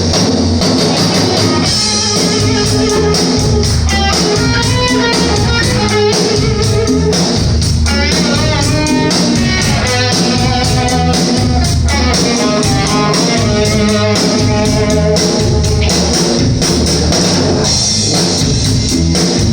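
Rock music with guitar over a drum kit keeping a steady beat, loud and unbroken once it starts.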